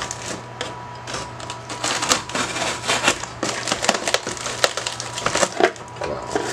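Cardboard shipping box being wrestled open by hand: a rapid, irregular string of sharp crackles and creaks as the flaps and an inner cardboard insert are bent and torn, with rustling of the plastic air-pillow packing.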